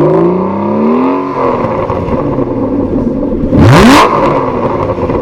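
Aston Martin CC100's V12 engine accelerating, its pitch rising for about a second, then a short, loud blast climbing steeply in pitch about three and a half seconds in.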